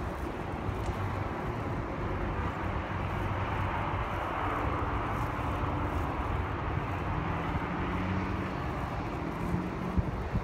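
Steady wash of distant road traffic heard from high above, with a faint engine drone joining in during the second half and a brief knock near the end.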